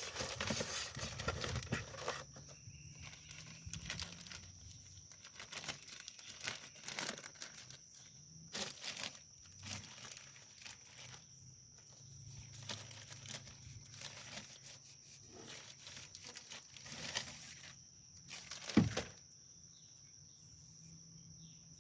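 Packaging being handled in irregular bouts of rustling and crinkling, with one sharper knock near the end. A steady high insect drone, typical of crickets, runs underneath.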